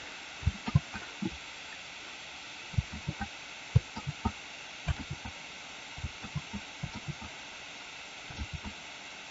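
Computer keyboard keystrokes: about two dozen soft, irregular taps as the Ctrl+Z undo shortcut is pressed over and over, over a low steady hiss.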